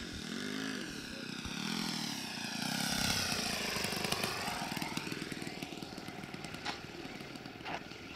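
Engine and propeller of a large radio-controlled model airplane making a low landing pass, loudest about three seconds in and fading as it settles onto the runway. Two short knocks sound near the end.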